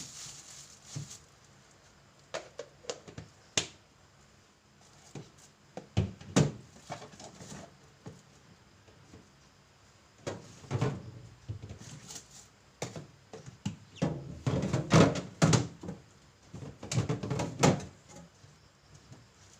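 Irregular knocks, thuds and clattering of objects being handled and set down around a small refrigerator during cleaning, in clusters, with the busiest stretch in the second half.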